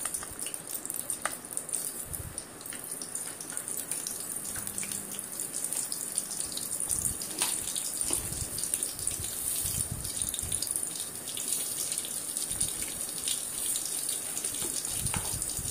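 Fennel and mustard seeds sizzling in hot oil in an aluminium pot: a steady hiss with a few scattered small pops. This is the tempering stage, with the mustard seeds heating toward spluttering.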